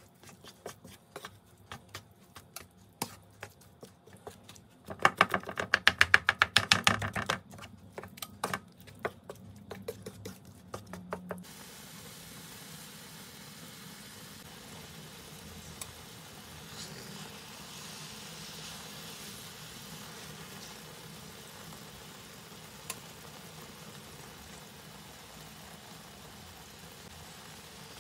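Wooden spatula stirring chunks of eggplant in tomato sauce in a non-stick frying pan: a run of clicks and knocks against the pan, loudest and fastest about five to seven seconds in. About eleven seconds in the stirring stops, leaving a steady hiss of the sauce simmering on low heat.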